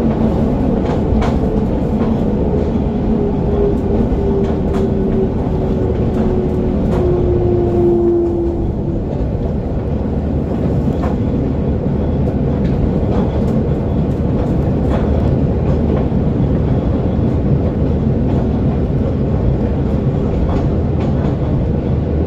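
Kobe Electric Railway 5000 series electric train running, heard from inside the car. A steady low rumble of wheels on rail comes with scattered rail-joint clicks. A whine from its Mitsubishi GTO VVVF-inverter traction motors slowly falls in pitch over about the first eight seconds, then fades.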